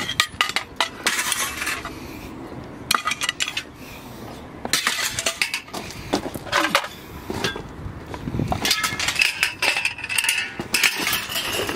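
Light iron scrap, thin steel rods and bars, clanking and clinking as pieces are picked up off gravel and tossed onto a load, a string of knocks with a few strokes ringing on briefly near the end.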